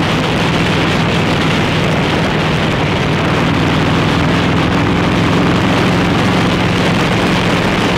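Harley-Davidson Road King's V-twin engine running steadily while the motorcycle cruises through curves, heard under heavy wind rush on the microphone.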